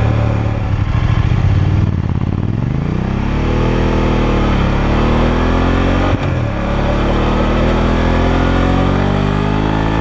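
BMW F850GS parallel-twin engine through its stock exhaust, heard from the rear of the bike while riding. It pulls with the pitch climbing, then gets a brief sharp interruption about six seconds in, typical of a quickshifter upshift, and then runs fairly steady. Revs stay moderate because the engine is still being run in.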